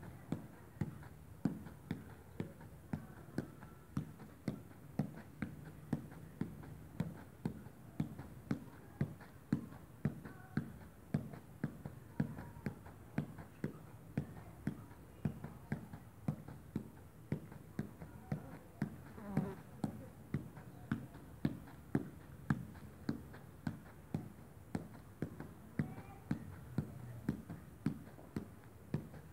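A small ball being juggled on the feet, each touch a short tap on the boot, in a steady rhythm of about two a second.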